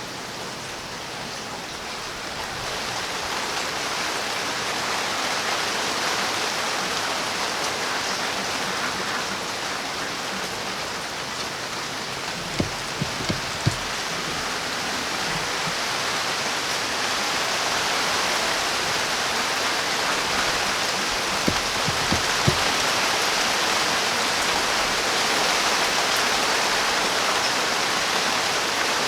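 Steady rain falling, an even hiss of drops that swells slightly a few seconds in. A few short, dull knocks come in two quick clusters, one around the middle and one about three-quarters through.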